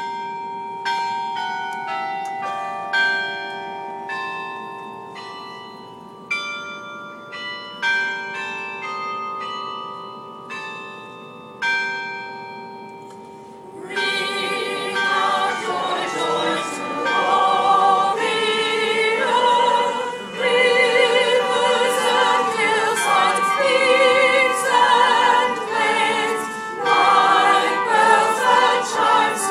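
Tower bells ringing, struck one after another at different pitches, each note ringing on and dying away. About halfway through, a choir starts singing.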